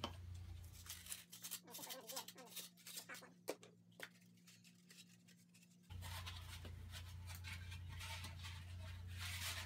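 Faint, irregular scratchy strokes of a Surform rasp shaving polyurethane foam, trimming a boar mannequin's mouth piece down by hand.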